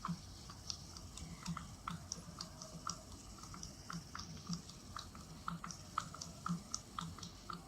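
Screwdriver tightening a screw in a table fan: faint, crisp little clicks at an uneven pace, about two or three a second.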